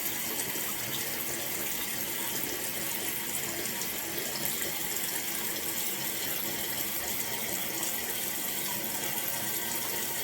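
Toilet tank refilling through a newly installed Fluidmaster fill valve: a steady hiss of running water.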